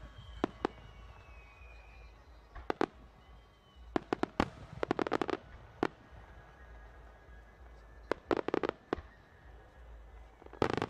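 Aerial fireworks shells bursting: irregular sharp bangs, with a rapid crackling run of reports about four to five seconds in and another cluster about eight seconds in.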